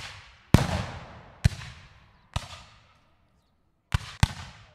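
Gunfire: five single shots at uneven spacing, each a sharp crack followed by a long echoing tail, the last two close together near the end.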